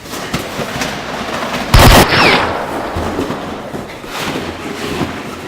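A single loud explosion-like blast about two seconds in, with a brief falling whine and a rumbling tail as it dies away.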